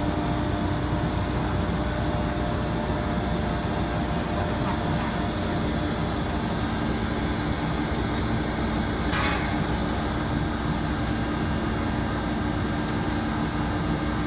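TDB-1000L extrusion blow moulding machine running as it extrudes the parison for a 1000 L IBC tank: a steady mechanical hum and drone. A short hiss comes about nine seconds in.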